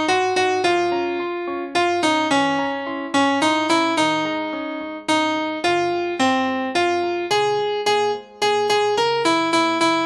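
Piano-type keyboard playing a melody in the middle register, note by note, each note struck and then fading.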